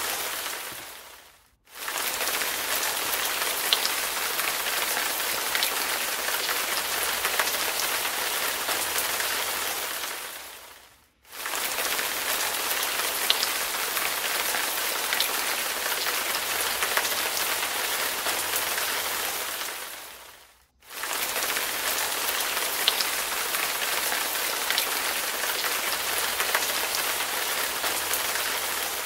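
Steady heavy rain hiss with scattered sharp drop ticks, fading out to silence and straight back in about every nine to ten seconds, the same stretch repeating each time: a looped rain recording.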